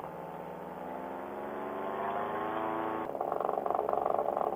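Paramotor engine and propeller running in flight, its pitch rising slowly for the first three seconds. About three seconds in, the sound switches abruptly to a louder, pulsing drone.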